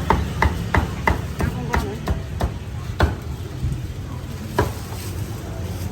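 Cleaver chopping roast pork: a quick run of sharp, slightly ringing chops, about three a second, then slower scattered chops, with a last single chop over a second after the rest.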